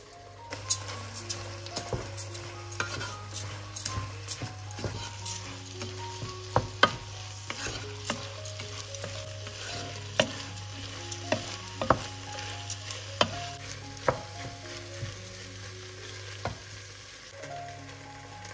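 Rice and browned minced meat sizzling in a nonstick pot while a wooden spoon stirs them, toasting the freshly added rice. Sharp knocks come irregularly as the spoon hits the pan.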